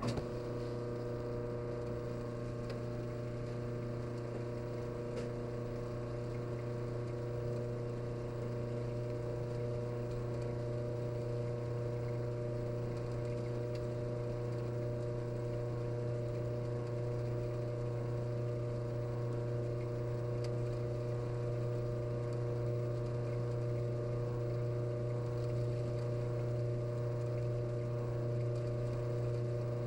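Washing machine drain pump running, a steady electric hum with water moving through it; it starts suddenly.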